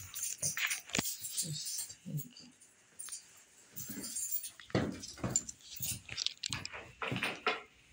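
A bunch of keys jangling and clinking in irregular bursts, with a quieter stretch in the middle.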